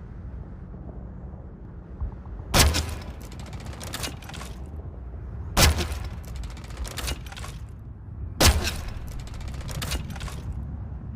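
Three crossbow shots about three seconds apart, each a sharp loud snap followed by a short rattling trail of smaller clicks, over a steady low rumble.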